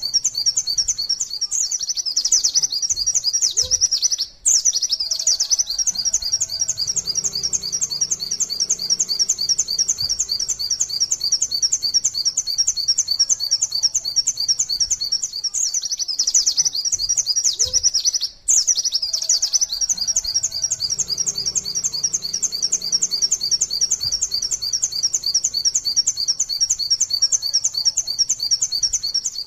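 White-eye (pleci) singing its long rapid 'nembak' song: a continuous string of quick, high, repeated 'wit wit tulit tulit' notes, many per second, broken only by two very brief gaps about 4 and 18 seconds in.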